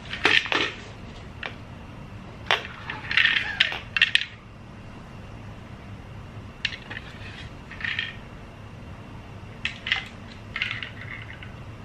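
Hard plastic cat toy clattering and rattling, its ball knocking about inside as the cat bats at it, in irregular bursts a second or two apart.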